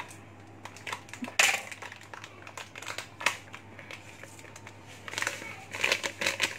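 A plastic sachet cut open with scissors and crinkled as it is handled and emptied into a food processor jug. There is a sharp click about a second and a half in, and denser rustling near the end.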